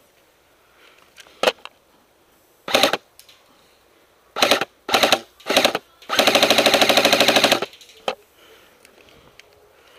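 Airsoft electric gun firing: a single click, then four short bursts, then one long full-auto burst of rapid shots lasting about a second and a half, starting about six seconds in.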